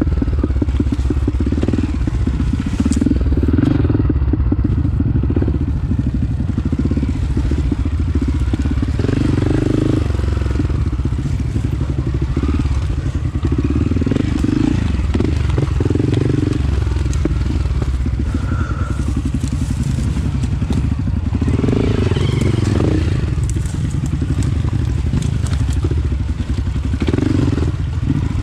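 Trail motorcycle engine running under way, the revs swelling and easing every few seconds as the throttle opens and closes, with clattering and knocks from the bike over rough ground.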